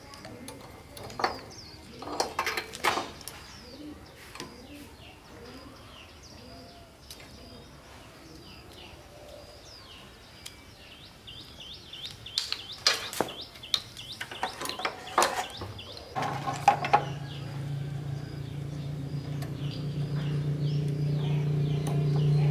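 Scattered knocks and clatter of hand work with birds chirping in the background; about three-quarters of the way in, a small petrol engine starts and keeps running with a steady low hum that grows louder.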